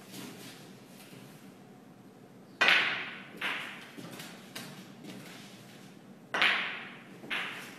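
Snooker shots: two pairs of sharp clacks from the cue and the snooker balls, each pair less than a second apart and the first of each pair the louder, with a few faint ball clicks between.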